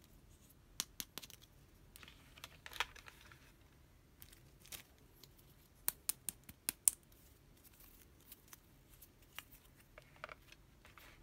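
Small hard-plastic toy accessories being handled, a pink plastic bead necklace and a plastic tiara, giving scattered sharp clicks and taps with some light rustling. The loudest is a quick run of several clicks about six to seven seconds in.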